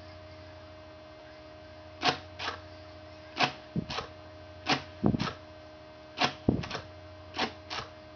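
Short puffs of breath blown into a small mouth-held toy, in pairs about every second and a half, starting about two seconds in, over a steady electrical hum. Two dull knocks midway.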